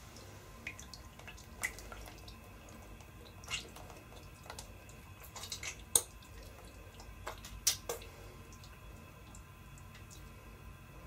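Scattered small clicks and ticks at irregular intervals over a faint steady hum. The sharpest comes about six seconds in, with another strong one near eight seconds.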